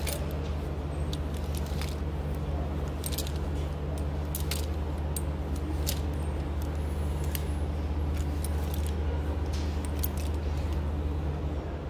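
Plastic clothes hangers clicking and sliding along a clothing rack as garments are pushed aside one by one: irregular sharp clicks over a steady low hum.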